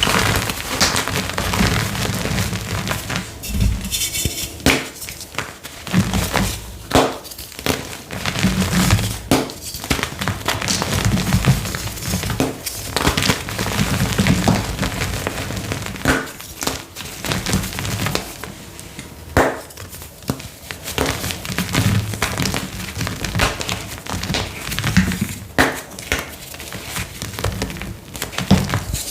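Blocks of gym chalk crushed and crumbled by hand: a run of irregular crunches and crackles, with many sharper snaps and softer powdery falls in between.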